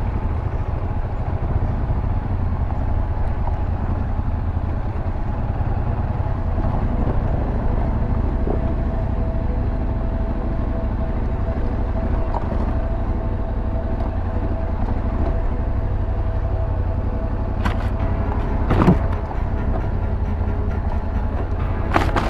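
A Yamaha Ténéré 700's parallel-twin engine running steadily as the bike rides a rough trail. Three sharp knocks come in the last few seconds, the middle one the loudest.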